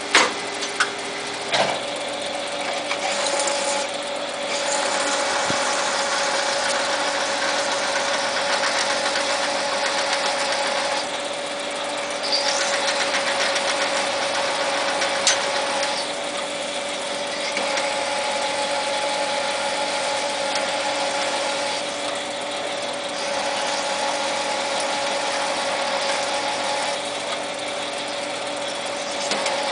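Jet TL-25 turret lathe running with a steady whine from its drive, cutting 12L14 steel in spells of several seconds with short easings between them. A few sharp metallic clicks in the first two seconds come as the turret is indexed.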